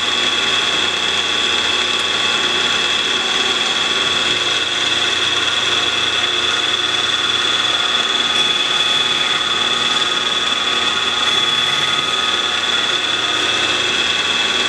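PM-940 CNC mill running steadily with a high whine from the spindle while an end mill cuts a block of UHMW plastic.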